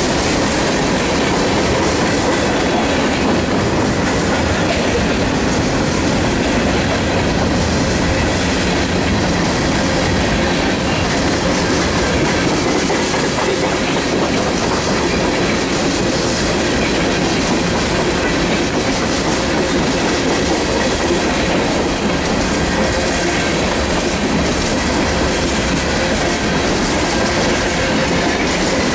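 A freight train rolling past close by, mostly tank cars: a loud, steady rumble and clatter of steel wheels on the rails that carries on without a break.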